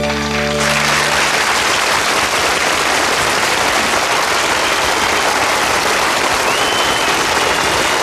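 A band's final held chord dies away in the first second, then a studio audience applauds steadily.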